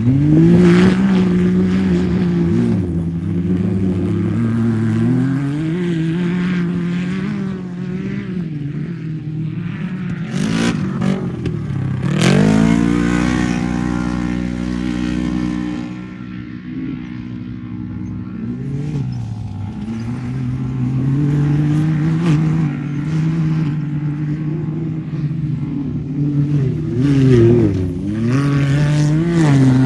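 Off-road race vehicle engine revving, its pitch rising and falling as it accelerates and backs off. About twelve seconds in, a louder engine note cuts in sharply and then slowly falls in pitch.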